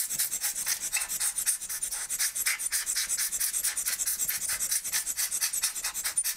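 Hand-squeezed rubber air blower pumped quickly and evenly, a steady run of short hissing air puffs, used to blow dust out of an opened camera body.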